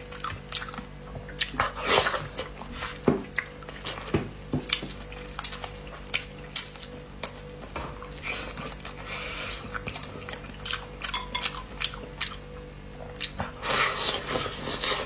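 Close-miked eating sounds: scattered clicks and taps of chopsticks against a dish, with chewing and mouth noises from eating braised frog, and a louder bite near the end. A faint steady background tone, likely music, runs underneath.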